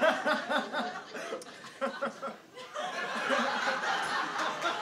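An audience laughing and chuckling, with the laughter spreading wider about halfway through.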